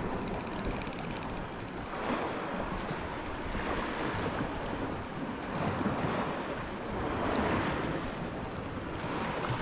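Sea waves washing in and out against the shore, swelling and easing every couple of seconds, with wind buffeting the microphone.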